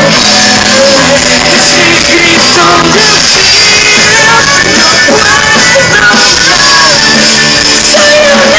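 Live band playing loud, with a singer.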